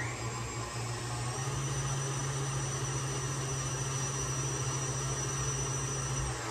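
Electric stand mixer running steadily, creaming butter, sugar and egg into a batter, with a low motor hum and a high whine. Its pitch shifts about a second and a half in, and it cuts off near the end.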